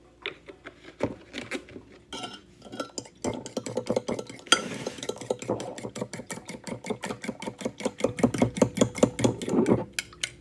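Eggs and almond milk being beaten in a bowl with a metal utensil for French toast batter. After a few scattered clicks, it settles about three seconds in into quick, even clinking against the bowl, about six strokes a second, stopping near the end.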